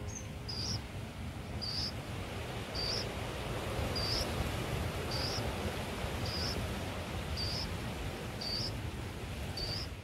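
An insect chirping: short high chirps repeating evenly about once a second over a steady background hiss.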